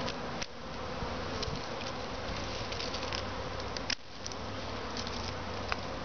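Honey bee swarm buzzing steadily, many bees flying around the cluster hanging in a shrub. A few sharp clicks cut through it, the strongest about half a second in and near four seconds.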